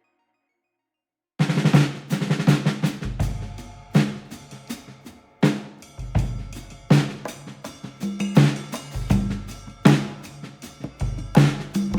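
Background music with a drum kit beat, starting abruptly about a second and a half in after a short silence.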